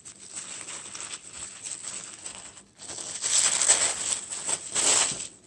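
Wrapping paper rustling and crinkling as a small wrapped gift is opened by hand, louder in the second half.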